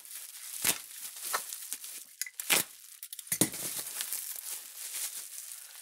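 Handling noise on a workbench: crinkling and rustling with a few sharp clicks and knocks, the loudest about three and a half seconds in.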